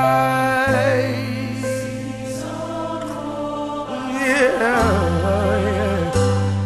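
Music: an inspirational song, with a singer's wavering sung runs over held bass notes that change a few times.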